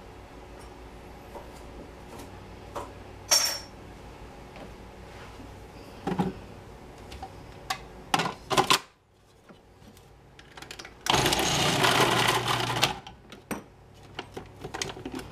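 Cuisinart food processor motor runs for about two seconds, about two-thirds of the way through, shredding carrot fed through the feed tube. Before it come several sharp clicks and knocks of the plastic bowl, lid and pusher being handled.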